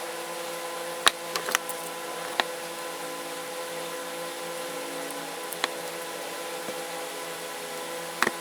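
A few sharp, separate clicks of small metal tools and ratchet parts being handled, over a steady background hum with a constant tone in it.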